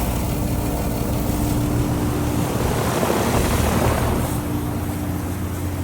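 Outdoor heat pump units running in heat mode: a steady low hum with a held mid-pitched tone and the rush of condenser fan air, which swells about three seconds in.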